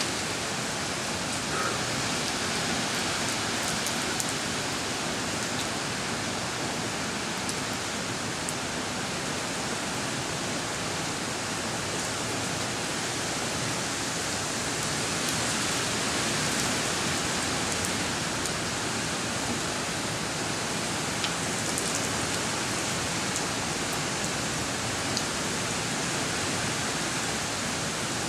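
Steady rain falling on a wet driveway and standing puddles, a constant even hiss with a few faint ticks of drops.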